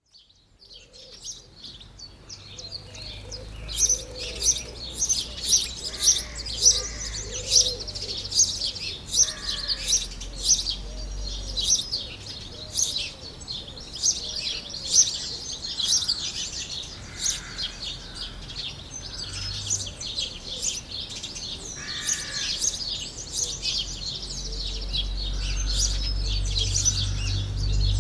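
Many small birds chirping and singing together in a dense chorus of quick high notes, fading in over the first few seconds. A low rumble builds under it near the end.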